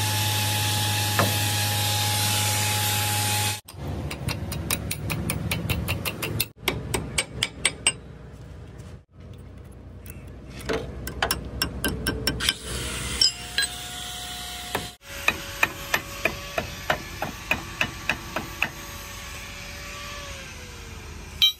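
Hammer blows on steel during backhoe front-axle pin and bush work, in several quick runs of evenly spaced strikes. A loud steady machine noise comes first, before the hammering starts.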